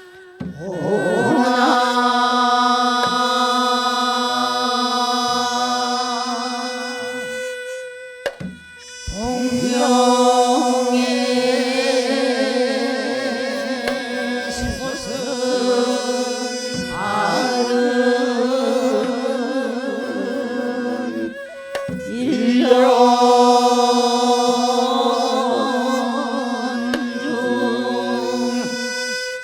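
Men and women singing Korean Naepoje sijo together as a chorus, holding long, slowly wavering notes in the slow classical style. The line breaks off for a breath about eight seconds in and again about twenty-one seconds in, then resumes.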